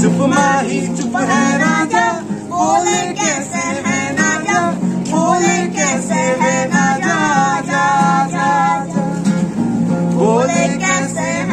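Acoustic guitar played live with a voice singing along to it.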